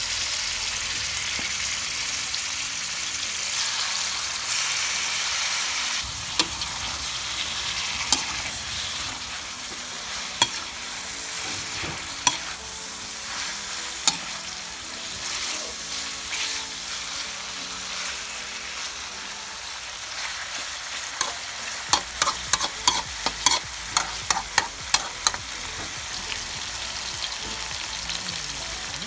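Raw chicken pieces sizzling in hot oil with onions in a wok, a steady frying hiss. They are stirred, with single knocks of the utensil on the wok every couple of seconds and a quick run of clinks about three quarters of the way through.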